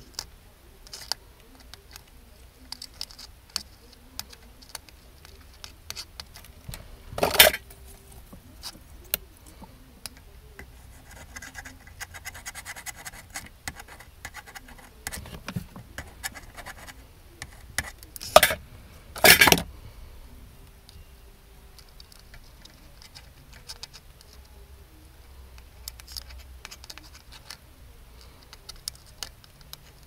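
Small scratches and clicks of a soldering iron tip and a metal tool working solder on a metal heatsink plate on perf board, with three louder brief bumps about a third of the way in and twice close together past the middle.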